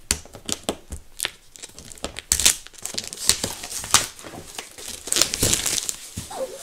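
Plastic shrink-wrap on a large cardboard game box crinkling and tearing under the hands as it is worked off, in a rapid, irregular run of crackles.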